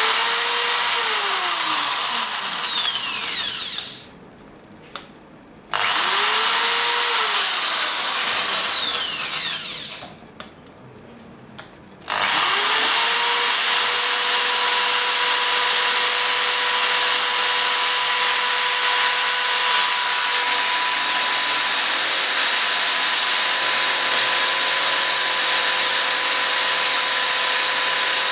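Electric drill boring into a smartphone's glass screen and metal body. It runs in two short bursts that each slow and stop after about four seconds, then runs steadily without a break from about twelve seconds in.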